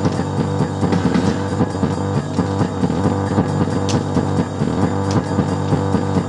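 Rock music with guitar and drums, driven by a fast, steady pulsing beat.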